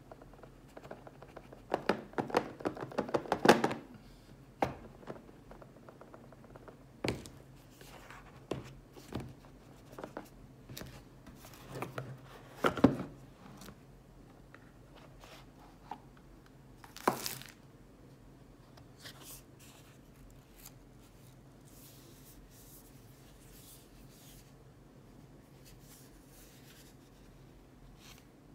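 Cardboard smartphone box being handled and opened by hand: irregular scrapes, taps and rustles of card and paper, with a dense run of knocks and rustling a couple of seconds in, another around the middle, and a short sharp rasp a little after, then only faint scattered clicks.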